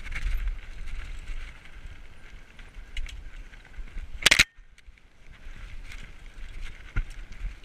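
Diamondback Recoil 29er mountain bike riding over a rocky dirt trail: tyres crunching and the bike rattling, with wind rumble on the helmet camera's microphone. Just past halfway comes a short, loud scratchy burst as brush swipes past, and near the end a sharp knock.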